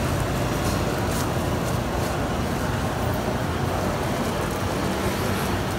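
Gas wok burner running at high flame under an empty wok: a steady, loud, low rumble.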